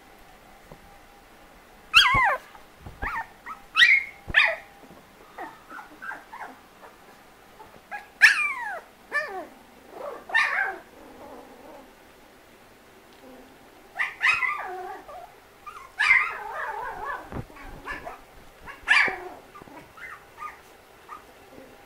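Three-week-old Australian Labradoodle puppies yelping and squealing while they tussle. Short high calls fall in pitch and come in bunches, with a few quiet gaps between.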